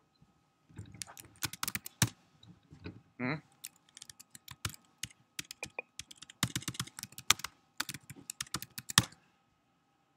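Typing on a computer keyboard: irregular bursts of keystroke clicks, with a short pitched blip a little over three seconds in.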